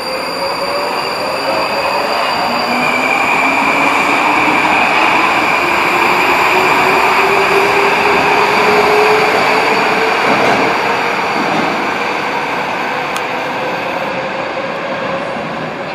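Metrowagonmash 81-775.2/776.2/777.2 "Moscow-2024" metro train accelerating out of the station: a whine from the electric traction drive rises steadily in pitch over the rumble of wheels on rail. It is loudest about nine seconds in, then fades as the train pulls away.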